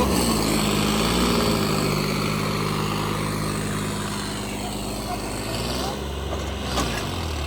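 John Deere 5210 tractor's diesel engine running steadily while the tractor is driven, with brief rises in engine speed near the start and a change in engine note about six seconds in.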